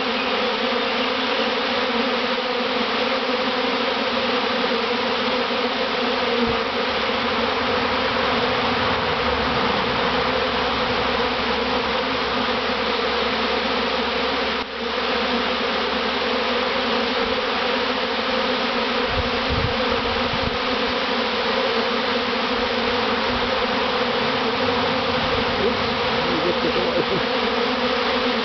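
A large swarm of honey bees buzzing all around, a steady dense hum from many bees in flight.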